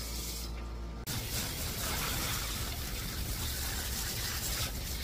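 Water from a hand-held hose spray nozzle hissing steadily onto a wet dog and the plastic grate of a grooming tub during a bath rinse. The spray hiss starts abruptly about a second in, after a steady low hum.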